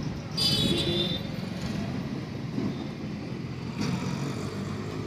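Street traffic noise, a steady rumble of passing vehicles. A brief high-pitched tone sounds about half a second in.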